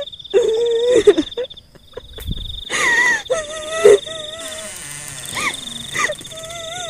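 Horror sound effects: a continuous high cricket-like trill beneath ghostly wailing and moaning tones that waver and slide up and down in pitch, with a brief low rumble and a few clicks about halfway through.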